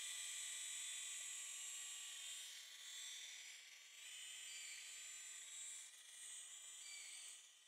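Small RC helicopter's motor and rotor whining at a high pitch, the pitch shifting now and then; it fades near the end.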